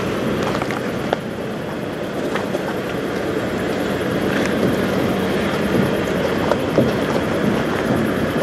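Semi truck's diesel engine idling, a steady low drone.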